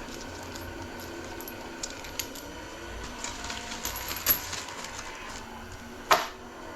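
Light clicks and clinks of metal 4L60 transmission parts being handled and turned over, with a sharper knock about six seconds in, over a steady low hum.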